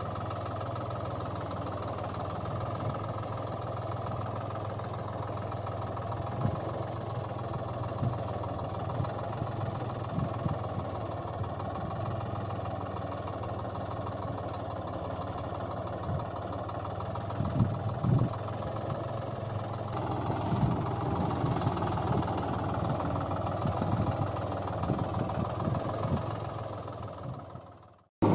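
An engine running steadily at idle, with a few light knocks, fading out near the end.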